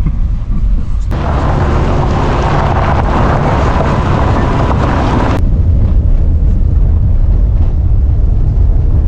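A moving vehicle, heard as a steady low rumble with wind buffeting the microphone. About a second in, a louder hiss of road or wind noise comes in and cuts off suddenly some four seconds later.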